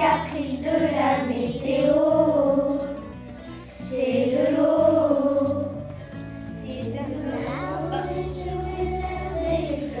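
Song with children's voices singing three long, wavering held phrases over a steady musical accompaniment.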